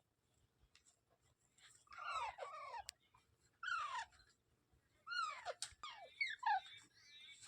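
A parrot giving short calls that slide steeply down in pitch, in three bunches of two to four calls each, with quiet gaps between.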